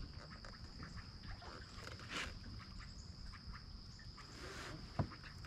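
Quiet lakeside ambience: insects give a steady, thin, high-pitched trill throughout, with faint scattered ticks and a soft rush of noise about two seconds in. A single sharp knock comes about five seconds in.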